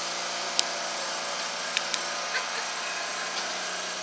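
Heritage tram's electric traction motors humming at a steady pitch as it runs, with a hiss of wheel-on-rail noise and a few sharp clicks.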